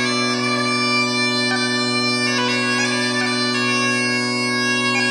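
Bagpipes playing a steady low drone under higher held notes that shift in pitch every second or so.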